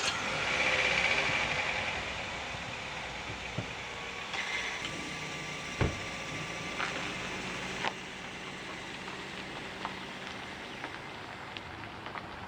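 2011 Mazda 3's 2.0-litre engine running just after being started on fresh oil, loudest for the first couple of seconds, then settling to a steady run. A single sharp knock about six seconds in.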